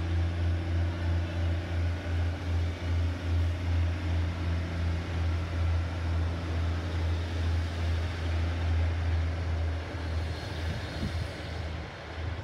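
Class 156 Sprinter diesel multiple unit's Cummins underfloor diesel engines throbbing with a steady low drone as the train pulls away from a signal. The sound fades somewhat near the end as it moves off.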